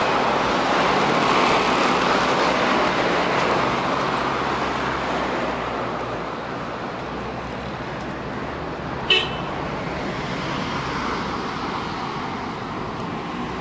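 Steady engine and road noise of a moving vehicle in traffic, slowly fading, with one short horn toot about nine seconds in.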